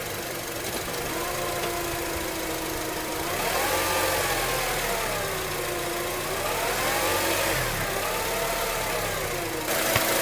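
2004 Acura TSX transmission whining over engine and road noise, the whine rising and falling in pitch several times as speed changes. The owner cannot place the whirring; commenters put it down to the torque converter.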